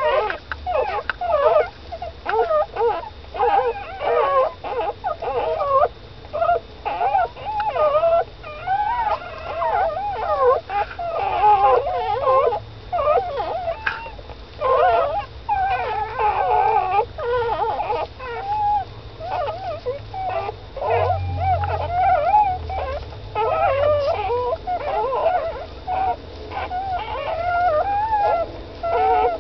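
A litter of newborn Shetland sheepdog puppies whimpering and squeaking: many short, wavering, high cries that overlap almost without pause.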